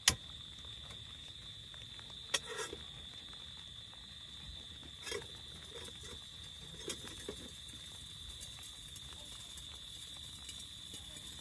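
Cooking pot, lid and camp stove clinking and knocking as they are handled inside a tent: a sharp knock right at the start, then lighter knocks about two, five and seven seconds in. Under it, rain patters on the tent and a steady high-pitched hum runs throughout.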